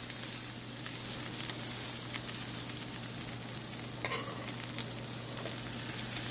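Butter sizzling and crackling as it melts on the hot plate of an electric contact grill.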